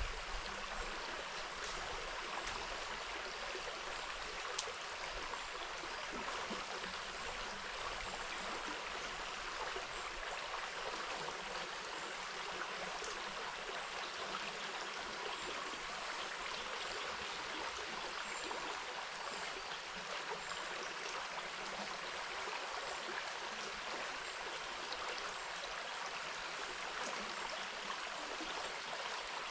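River water flowing steadily over its bed, an even rushing sound, with a few faint ticks.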